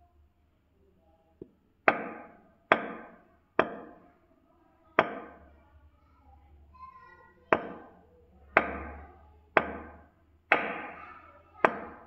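Nine sharp knocks at irregular intervals, each fading over about half a second: hands striking a patient's bare feet during chiropractic foot work.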